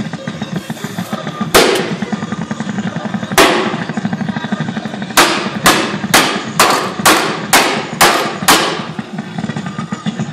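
Sharp bangs over a steady low hum: two single bangs about two seconds apart, then a run of eight about two a second.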